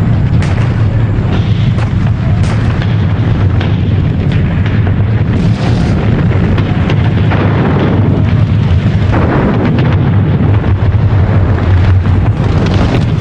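Battle sounds: a continuous din of shell explosions and artillery fire, a steady deep rumble under many sharp blasts and cracks.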